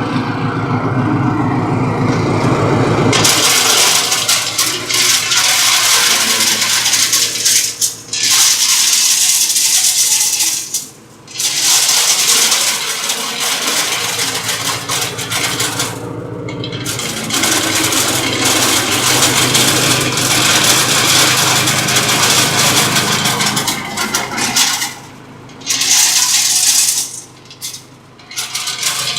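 Candlenut shell-cracking machine running: a steady machine hum, then about three seconds in a loud, dense rattle of candlenuts clattering and cracking inside the machine as they are fed through. The rattle drops away briefly several times while the machine keeps humming.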